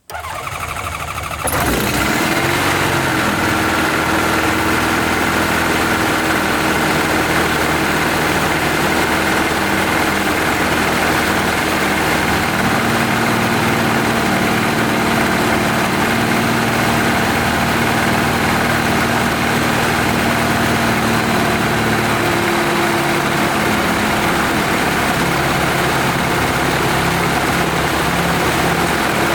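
Freshly rebuilt piston engine starting on its first run: a second or so of cranking, then it catches and runs steadily at idle.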